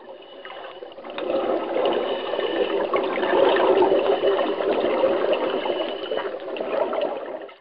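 Edited-in sound effect of rushing, bubbling water for an animated logo. It swells after about a second and cuts off sharply at the end.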